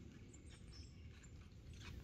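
Faint, scattered footsteps of a white-tailed deer crunching through dry fallen leaves, a few soft steps with the clearest near the end.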